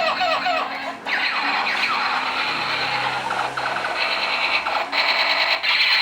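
Electronic sound effects from a battery-powered toy gun: quick falling and rising laser-like zaps, then a rapid pulsing tone like a machine-gun effect.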